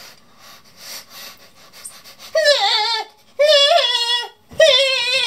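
An adult man imitating a crying baby: soft, breathy whimpers for about two seconds, then high, wavering wails in three bursts, each under a second long.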